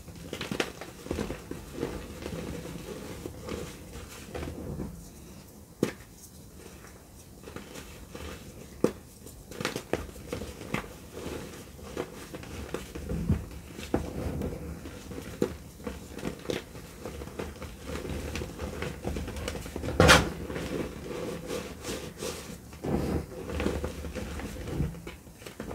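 Hands crushing dry blocks of Easy Grip gym chalk over a heap of loose powder: irregular crumbly crunches and crackles, with one much louder crunch about twenty seconds in.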